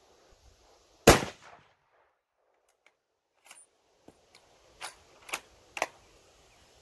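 A single .270 rifle shot about a second in, very loud and sharp with a short tail. From about three and a half seconds in comes a run of metallic clicks as the bolt is worked to eject the spent case and chamber the next round, the last three clicks the loudest.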